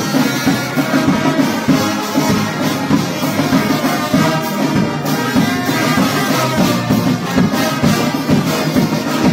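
Brass band playing a tune together, the brass instruments carrying the music at a steady level.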